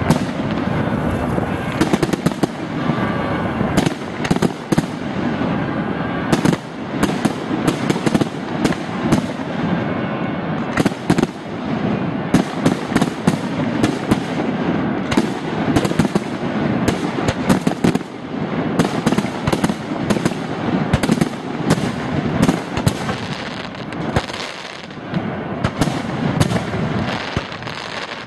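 Fireworks display: a dense, unbroken barrage of bangs and crackling as rockets go up and aerial shells burst, with sharp reports coming several times a second.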